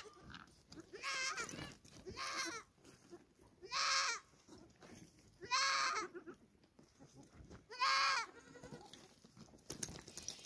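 Goat bleating repeatedly: five short, wavering bleats spaced one to two seconds apart.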